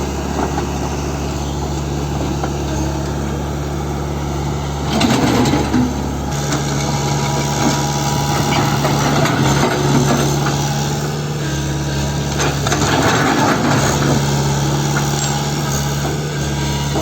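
Tata Hitachi Zaxis 120 excavator's diesel engine running steadily, its note shifting slightly about six seconds in, with a couple of brief louder noisy moments.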